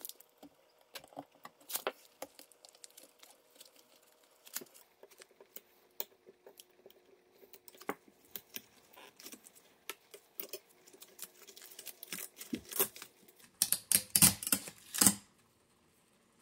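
Small chisel prying spot-welded nickel strips off the tops of lithium-ion cells in a plastic cell holder: irregular metallic clicks, ticks and scrapes, building to a quick flurry of louder clatter near the end as a strip comes away.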